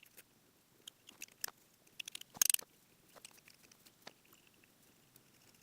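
Scattered small clicks and crackling handling noise as parts are pulled off a bicycle handlebar, with a louder crackling rustle about two and a half seconds in.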